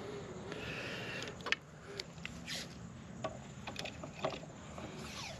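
Faint handling sounds: light clicks and rustles of hands working a metal outlet cover plate and a roll of electrical tape, with a short hiss about a second in.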